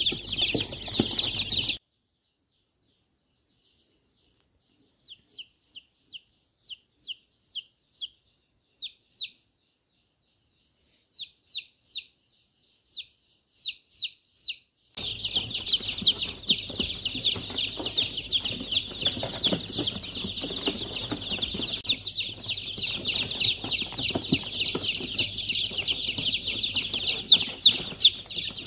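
Many newly hatched chicks peeping together, a dense chorus of high peeps, which breaks off after about two seconds. After a few seconds of silence a single chick peeps in short runs of quick downward-sliding peeps, and about halfway through the crowd of chicks peeping together comes back and carries on.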